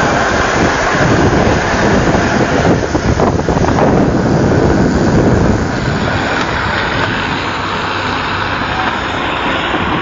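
Steady rumble of a pushed rail trolley rolling along the track, mixed with wind buffeting the microphone, a little quieter in the second half.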